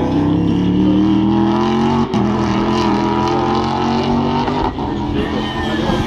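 Racing saloon car's engine running hard around the circuit, its pitch climbing slowly, with two brief breaks about two seconds in and near five seconds.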